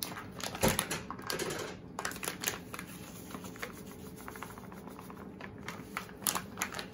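Paper-and-plastic bag of Louisiana Fish Fry breading crinkling and rustling as the coating is poured into a plastic mixing bowl, with one loud knock about a second in and more clicks and rustles near the end.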